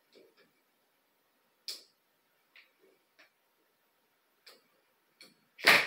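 Stretched latex resistance band under heavy tension giving faint, scattered creaking ticks, about seven of them, then a loud slap near the end as it is let go.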